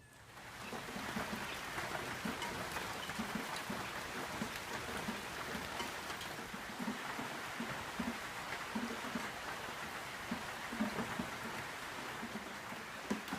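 Heavy tropical-storm rain falling steadily, with irregular dull knocks of drops striking a surface. It starts abruptly about half a second in.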